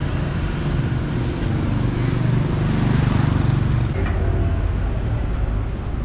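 Street traffic with a motor vehicle's engine running close by, a low hum that swells to its loudest about three seconds in and then eases.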